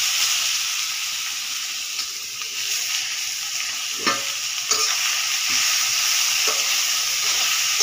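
Grated bottle gourd sizzling as it fries in hot desi ghee in a metal kadhai, stirred with a ladle; the ladle knocks against the pan a couple of times about four and five seconds in.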